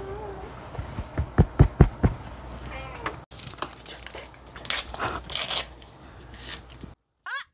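Close-miked eating sounds with a metal chopstick clicking on a plastic takeout bowl, and a few heavy thumps about a second and a half in. At the very end a sudden high-pitched cry begins: a yelp of pain as spicy mala sauce splashes into the eater's eye.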